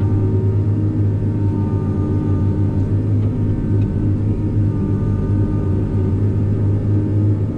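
Tigercat 620 skidder's diesel engine running at a steady pitch with a constant low drone as the machine works its front blade along a dirt haul road.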